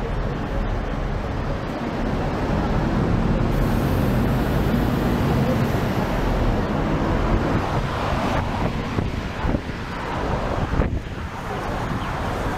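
A sightseeing bus's engine running among city street traffic as the bus rides along, with wind blowing on the microphone.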